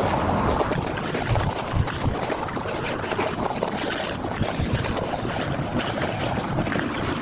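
Wind noise buffeting the microphone, with the rustle of nylon stuff sacks being handled and packed.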